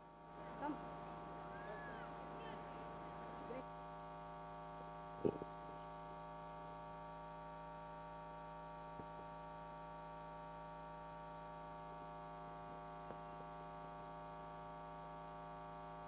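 Steady electrical mains hum from the sound system, made of several steady tones. A single sharp knock about five seconds in.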